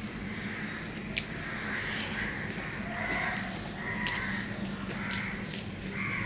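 Crows cawing over and over, about one harsh caw a second, with sharp clicks of chewing and a steady low hum underneath.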